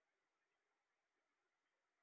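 Near silence.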